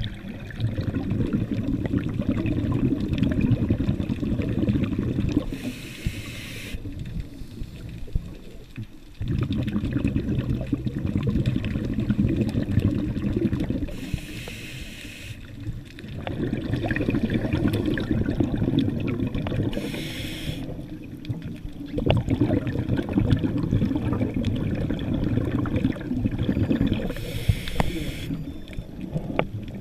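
Scuba diver breathing through a regulator, heard underwater: a short hissing inhale about every seven seconds, each followed by a long rumbling rush of exhaled bubbles, about four breaths in all.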